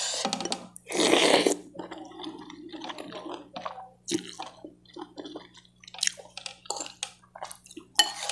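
Slurping up a mouthful of wet fried noodles (mie goreng nyemek) about a second in, followed by moist chewing sounds and a few small clicks.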